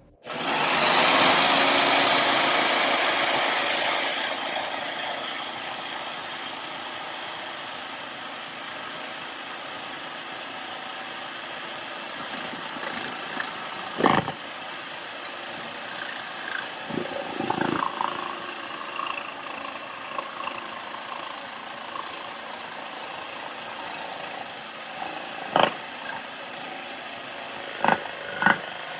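Jigsaw mounted upside down in a bench vise, running on its lock-on button while cutting a curve, comes in abruptly and is loudest for the first few seconds, then runs steadily. A few sharp knocks sound about halfway and three near the end.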